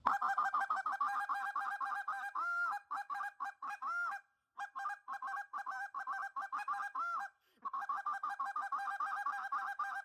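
Short-reed goose call blown fast in rapid strings of clucks, broken by a few longer, drawn-out honks and two short pauses, imitating a flock of Canada geese (running traffic).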